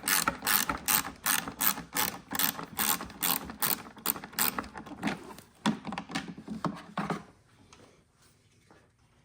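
Compact Wera ratchet with a T25 Torx bit clicking in a steady rhythm, about three clicks a second, as screws are backed out. The clicking turns uneven and stops about seven seconds in.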